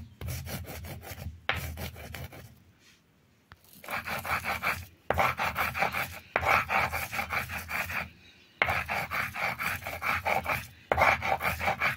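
Cumin seeds being ground on a flat grinding stone with a hand-held stone roller (silauto-lohoro): quick back-and-forth rasping strokes of stone scraping on stone over the seeds, in runs broken by brief pauses, one of about a second about three seconds in.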